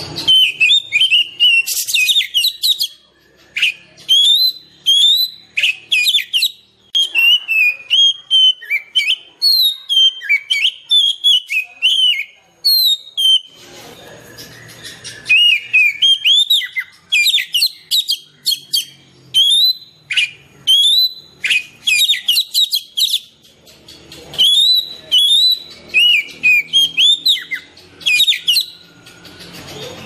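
Oriental magpie-robin (kacer) singing a long, varied song of rapid whistled notes that swoop up and down, broken by short pauses every few seconds.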